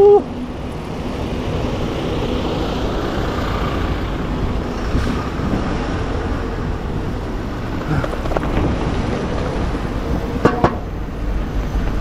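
Steady road traffic noise of passing cars and buses, heard from a moving bicycle beside the road.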